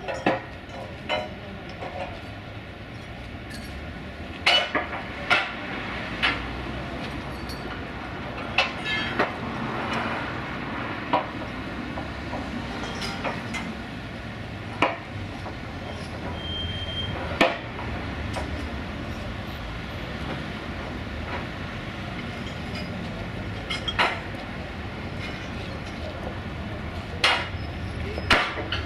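Irregular sharp metal clanks and knocks, a second to several seconds apart, as workers handle steel bars and fittings at the tram's rail and trailer, over a steady low rumble of engines and street traffic.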